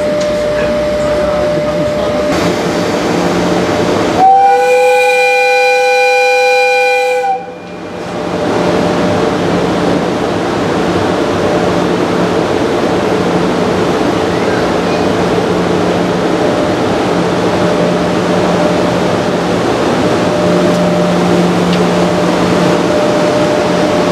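JR Freight EF66 electric locomotive sounding its horn in one blast of about three seconds, about four seconds in: the departure signal. Before and after it, the steady running noise of the locomotive as it pulls the freight train slowly out.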